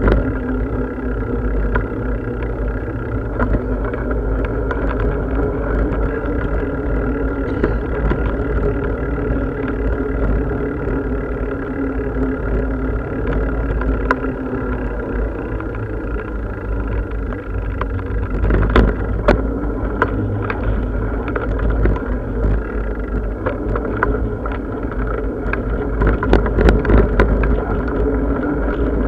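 Riding noise from a moving bicycle: a steady low rumble of wind on the microphone with a constant hum underneath, and bursts of rattling knocks about two-thirds of the way through and again near the end.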